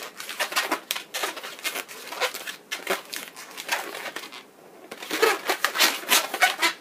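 Inflated latex modelling balloon squeaking and rubbing under the hands as it is twisted in half, a run of short squeaks that is loudest in a cluster near the end.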